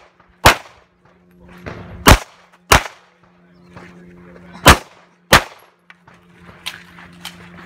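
Competition pistol shots: five loud, sharp shots, one about half a second in, then two pairs each about 0.6 s apart, around 2 and 5 seconds in. A few fainter sharp ticks follow near the end.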